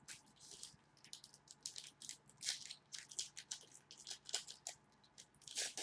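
Trading cards and pack wrappers being handled: a string of short, irregular scratchy rustles and slides as cards are sorted through.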